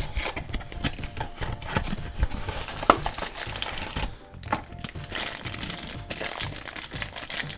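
Cardboard blind box being opened, then a black plastic figure bag crinkling as it is handled, over quiet background music.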